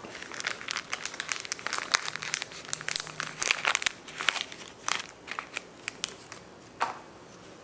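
Crinkling packaging of a roll of 2-inch gauze being handled: a run of quick, irregular rustles that thin out after about five seconds.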